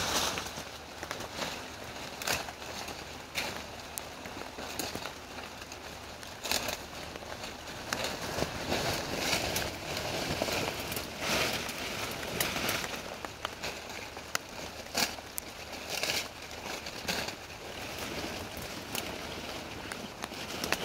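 Salal brush being picked by hand: leafy branches rustling and stems crackling and snapping in irregular bursts as bunches are gathered.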